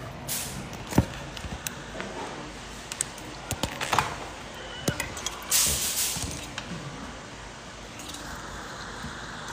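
Handling noise from a smartphone being moved and set in place: scattered clicks and knocks, and a brief rustle about five and a half seconds in.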